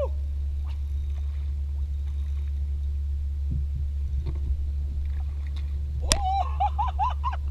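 Boat motor running with a steady low rumble. Near the end comes a short call that wavers up and down in pitch.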